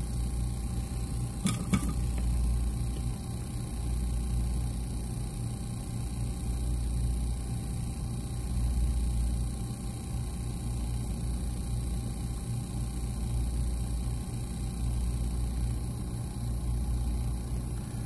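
Steady low rumble and hum of a hot air rework station's blower running, swelling and easing every couple of seconds, with one faint click about a second and a half in.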